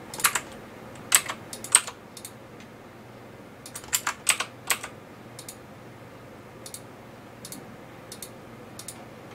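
Computer keyboard keys clicking in short, scattered bursts of typing, with a few fainter single clicks later on.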